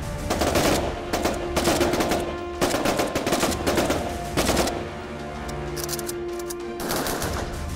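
Several soldiers firing AK-47 rifles together on a firing range: rapid, overlapping shots in clustered bursts, heaviest in the first four seconds, then thinning before picking up again near the end. Steady background music runs underneath.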